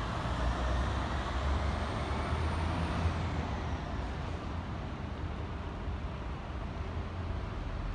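Road traffic noise: a steady low rumble of vehicles that eases off slightly after about four seconds, with a faint high whine about two seconds in.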